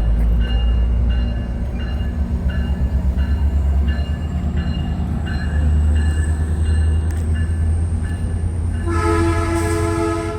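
Metrolink train's diesel locomotive rumbling, with a bell ringing steadily about twice a second. About 9 seconds in, the train horn sounds a loud, chord-like blast that runs on to the end.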